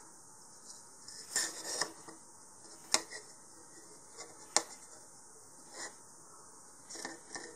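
Faint handling noises of a plastic model-rocket nose cone and its elastic shock cord as knots are pulled tight: a few soft rustles and two sharp clicks, about three and four and a half seconds in.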